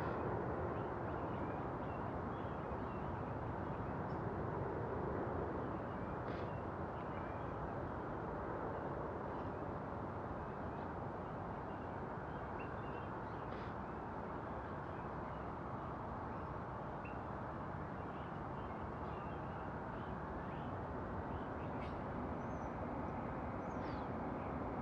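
Steady outdoor background rumble with faint, scattered bird chirps over it.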